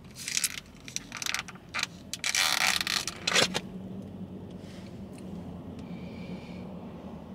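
Plastic fork scraping and clicking in a plastic takeout container of poke, with a louder rustle of the plastic lid being handled between two and three seconds in. After about three and a half seconds only a faint steady hum remains.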